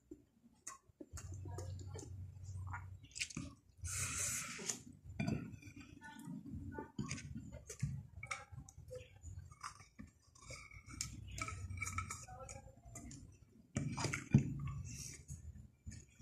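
Someone chewing and eating rice by hand from a glass plate: small clicks and clinks of fingers on the glass, with a short burst of hiss about four seconds in and one sharper click near the end.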